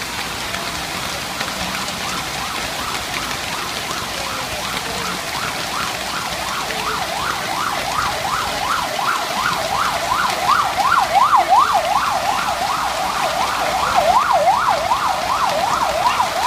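Heavy rain pouring down on a street. An emergency vehicle's siren wails in a fast yelp, about three sweeps a second, fading in early and growing louder through the second half.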